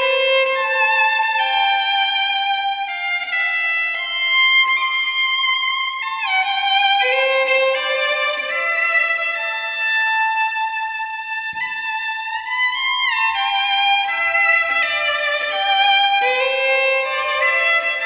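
Solo fiddle playing a slow, flowing Scottish air: long held notes that slide up or down into one another, decorated with grace notes.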